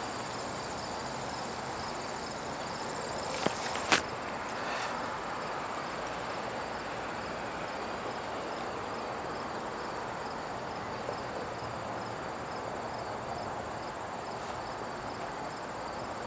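Insects chirping in a steady, evenly repeating high pulse over a steady hiss. Two sharp clicks come about three and a half and four seconds in.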